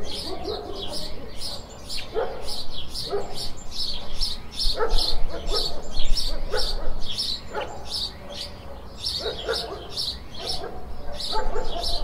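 Small songbirds chirping over and over, about two to three short high chirps a second without a break. Short lower-pitched calls break in every second or two, over a faint low rumble.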